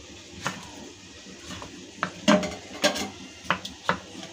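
Knife chopping a tomato on a wooden cutting board: about six sharp knocks of the blade on the board, a single one about half a second in, then a quicker cluster over the last two seconds.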